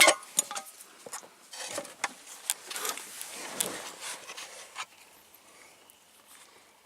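Hand tools clicking, clinking and rustling as someone rummages for a Torx bit, with a few sharp clicks among the noise. It dies down after about five seconds.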